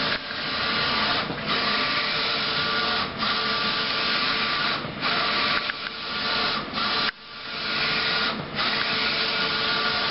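Roland Hi-Fi Jet wide-format inkjet printer, converted to eco-solvent ink, running a banner print job. The print-head carriage whirs steadily as it sweeps across, with a brief drop every second or two as it reverses.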